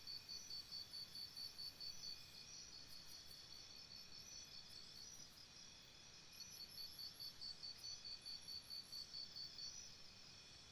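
Crickets chirping faintly. One cricket gives a steady run of high chirps, about four to five a second, that stops about two seconds in and starts again around six seconds in, with fainter crickets chirping behind it.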